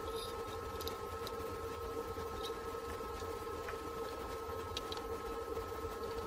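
Soldering iron and solder wire working on a small circuit board: a few faint, scattered clicks and light scratching as the tip touches the joints. Under them runs a steady hum of two tones.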